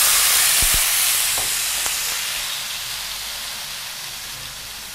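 Wet green herb paste of coriander, mint, dill and green chillies sizzling and steaming in a very hot frying pan: a loud hiss that slowly dies down as the pan cools under the wet mixture. A couple of light knocks about half a second in.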